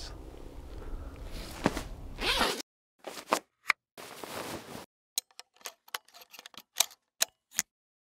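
Camera gear being handled with gloved hands: a steady hiss for about two and a half seconds, then rustling and a string of short, sharp clicks as parts of a Nikon D850 camera and its mount are handled.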